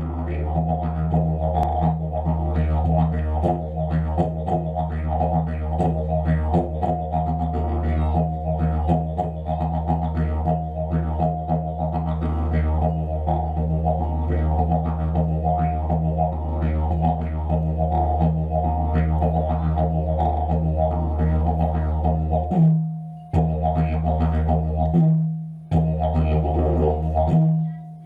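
Didgeridoo played live: a steady low drone with fast rhythmic pulses over it. The drone drops out briefly three times near the end.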